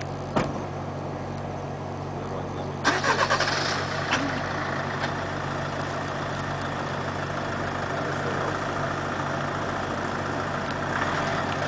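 Minivan engine idling steadily, with a few sharp clicks about three seconds in.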